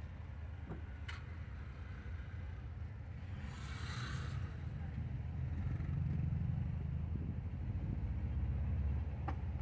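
Low vehicle engine rumble with road noise, heard from inside a moving vehicle. It grows louder for a few seconds past the middle, and a brief hiss passes about four seconds in.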